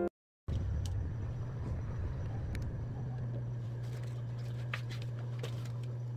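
A steady low hum of room or machine noise, with faint scattered crackles and rustles as conifer branches are handled.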